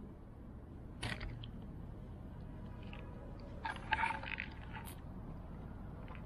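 Faint handling noises from hands on a paper pastry bag, a glazed donut and the camera: a short rustle about a second in, then a cluster of rustles and clicks around four seconds in, ending in one sharp click.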